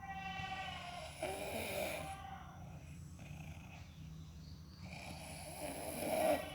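A sleeping person snoring: two long snores, one about a second in and a louder one near the end, with a brief pitched tone at the very start.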